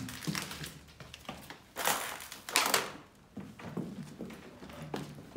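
Footsteps crunching and scuffing over fallen plaster and rubble on a debris-strewn floor, a run of separate crunches with the loudest about two and a half seconds in.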